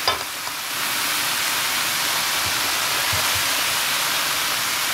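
Chickpeas frying in oil in a pot, a steady sizzling hiss, with one light knock near the start.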